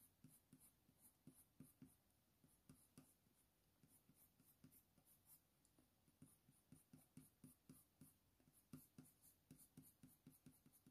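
Faint scratching of a Faber-Castell Polychromos coloured pencil on hot-press watercolour paper: quick, short, irregular strokes laying in fine fur, coming closer together in the second half.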